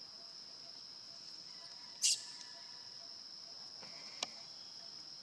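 Insects droning steadily at one high pitch. A short, sharp, high-pitched sound comes about two seconds in, and a faint click near the end.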